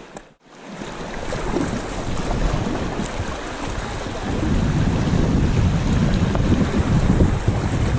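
Rushing whitewater of a shallow river rapid splashing around a kayak's hull, with wind buffeting the microphone. It drops out briefly right at the start, then builds and grows louder about halfway through as the boat runs the fast water.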